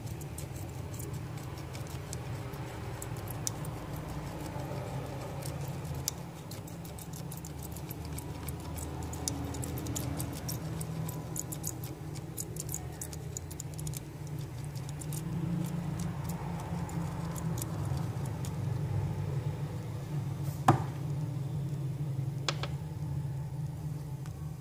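Faint crackling ticks of flux under a hot soldering iron on connector pins, over a steady low hum, with one sharp click about 20 seconds in and a smaller one shortly after.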